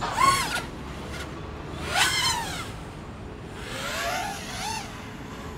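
A 5-inch FPV freestyle quadcopter's brushless motors whining in short throttle bursts, the pitch sweeping up and back down: once at the start, once about two seconds in, and twice more softly near the end.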